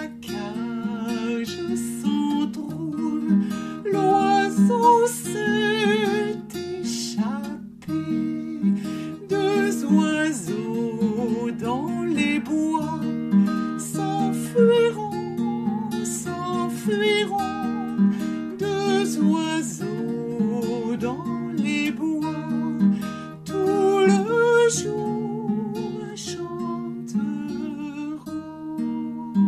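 Background music: strummed acoustic guitar with a wavering melody line over it.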